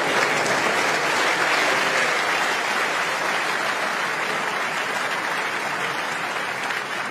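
Large arena audience applauding steadily as a snooker frame is won, the applause easing off gradually toward the end.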